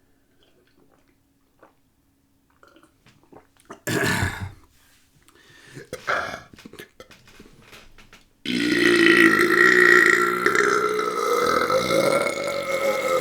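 A single long, drawn-out burp lasting about five seconds, starting about eight and a half seconds in, pitched and steady with a slight waver, after a few brief quieter sounds earlier on.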